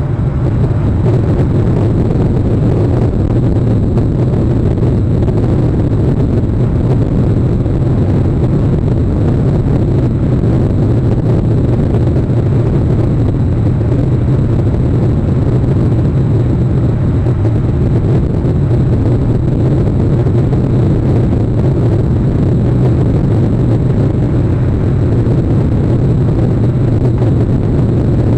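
Steady, loud low rumble of outdoor noise on a live nest camera's microphone, with no distinct calls or knocks standing out.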